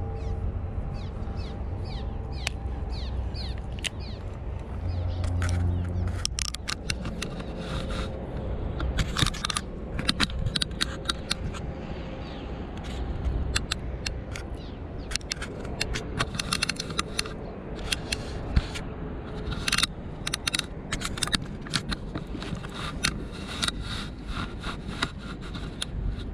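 Handling noise from a baitcasting rod and reel being worked: irregular clicks, ticks and scrapes that thicken from about six seconds in, over a steady low rumble.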